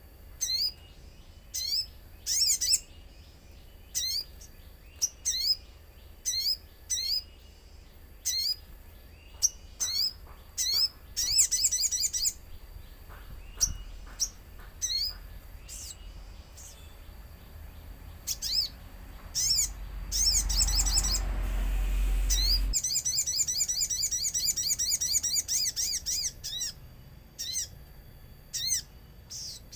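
Sogon, a small songbird, calling over and over in short, high, sweeping chirps, with fast chattering runs about halfway through and again later. A low rumble builds underneath and stops suddenly a little before the last long chattering run.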